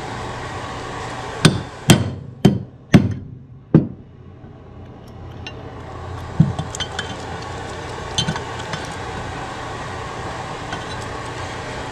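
A hammer striking metal five times in quick succession in the first four seconds, then lighter metal clinks as tools are handled against a 200-4R transmission front oil pump.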